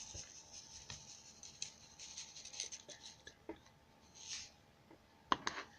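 Faint scratching and rustling of borax being added to a bowl of slime mixture, with a short hiss about four seconds in and two sharp taps near the end.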